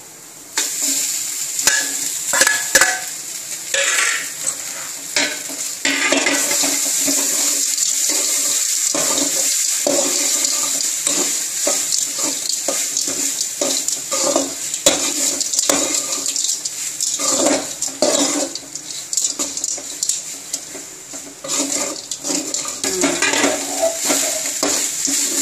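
Cooked rice tipped into a stainless steel kadai and stirred with a steel spatula: repeated scraping and clinking of metal on metal, over a steady hiss.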